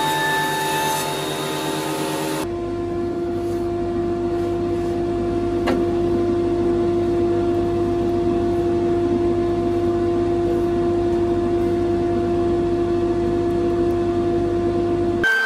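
RIDGID benchtop thickness planer running with a steady, even hum and whine, with one sharp tick about a third of the way through. For the first couple of seconds a different sound with several shifting tones is heard before the planer sound cuts in.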